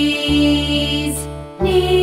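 Recorded children's song music: held, sustained notes over a steady bass, the chord changing about a quarter second in and again near the end.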